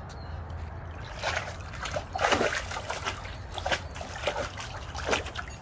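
Golden retriever splashing in a small collapsible paddling pool, pawing at the water and dunking her head: a run of irregular splashes starting about a second in, the loudest a little past two seconds in.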